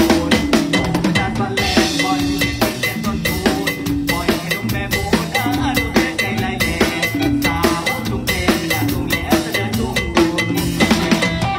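Live Isan mor lam band music driven by a drum kit: a busy beat of snare, rimshot and bass drum hits over bass and other pitched instruments.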